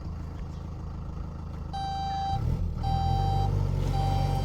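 A vehicle's engine running, getting louder about two seconds in as a reversing alarm starts beeping: steady single-pitch beeps, each about half a second long, coming roughly once a second while the vehicle backs up.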